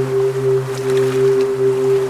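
Ambient meditation music: a steady, sustained low drone with ringing overtones, like a singing bowl or synth pad, over a soft hiss of background noise.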